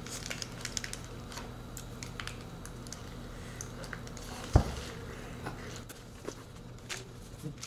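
Scattered small clicks, taps and rustles of people eating a burger meal with fries and cheese balls, with one louder knock about four and a half seconds in.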